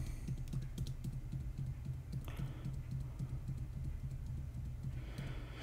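Typing on a computer keyboard: a run of quick, light key clicks as code is entered.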